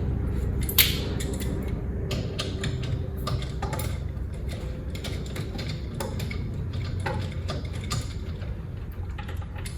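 Irregular metallic clicks and clinks of hand tools working the wheel lug bolts of a car, over a steady low hum.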